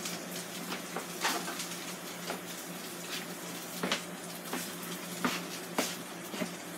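Irregular light knocks and clicks of a pan and kitchen utensils being picked up and handled, over a steady low hum.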